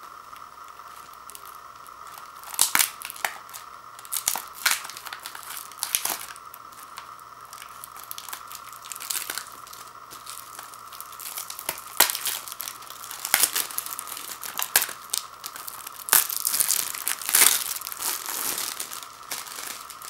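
Plastic shrink-wrap being torn and peeled off a Blu-ray case, crinkling in irregular bursts that grow busiest near the end as the wrap comes free.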